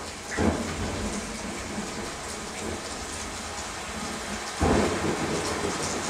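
Rainstorm from a Dolby Atmos demo disc, played back through the Sennheiser AMBEO soundbar: steady rain with thunder. One thunderclap comes about half a second in and a louder one at about four and a half seconds.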